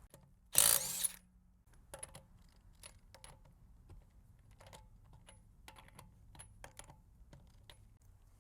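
Socket wrench working a worn lug nut: a short, loud burst of noise about half a second in, then a run of light, irregular metallic clicks and clinks of the socket on the nut.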